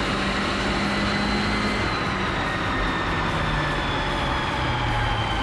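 Turbocharged Pontiac Solstice's Ecotec four-cylinder running on a chassis dyno, the rear tyres turning the roller. It makes a steady drone whose pitch slowly drops, easing off in two steps in the second half.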